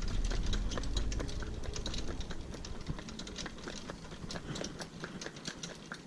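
A pony's hooves clip-clopping on a tarmac road, with the light pony cart rattling along behind: a quick, irregular run of sharp clicks. A low rumble underneath fades out about three seconds in.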